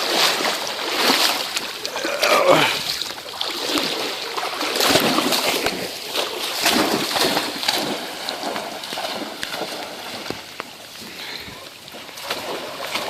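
Irregular splashing and sloshing of feet wading through shallow flood water, louder for the first several seconds and then lighter.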